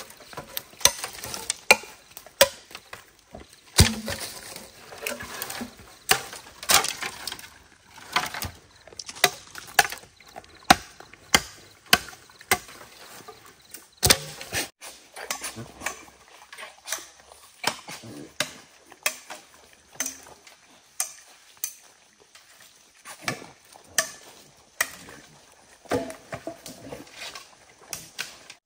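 Repeated chopping strikes, sharp and separate, at an irregular pace of about one or two a second.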